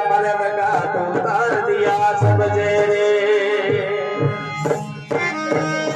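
Instrumental interlude of a Marwari devotional bhajan: harmonium carrying the melody over dholak drum strokes, with the Marwari veena (tandura) played alongside.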